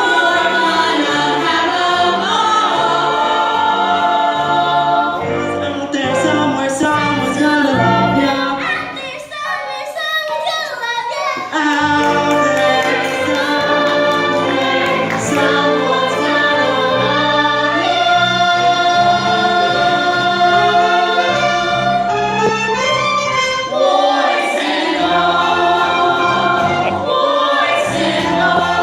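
Music: a choir singing held, sustained chords over a low accompaniment, dipping briefly partway through.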